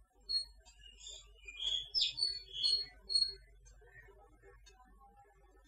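A small bird chirping: a string of short, high chirps over the first three seconds or so, a couple of them sliding in pitch, then only faint low hum.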